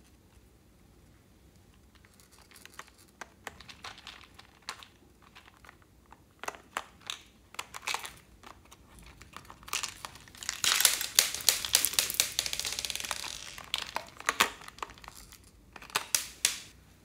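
Hard plastic toy telephone being handled, with crinkling and crackling from plastic and tape and scattered sharp clicks; a dense run of crinkling partway through is the loudest part, with a few more clicks near the end.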